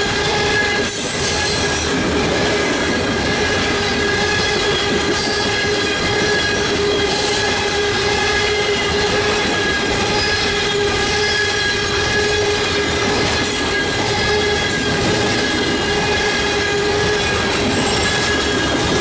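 Freight train of open-top coal cars rolling past at close range: a steady rumble of steel wheels on rail with a continuous squealing tone from the wheels and a few sharp clicks.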